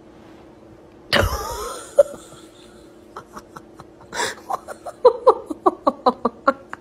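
Laughter in quick short bursts, several a second, building from about three seconds in, after a loud sudden cry about a second in.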